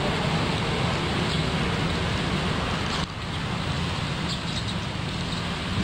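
Steady outdoor background noise, an even hiss and low rumble with no distinct events, dropping a little about three seconds in.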